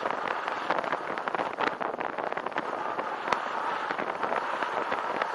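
A tandem bicycle rolling along a rough, gritty path: dense, irregular crackling and clicking from the tyres and the moving bike.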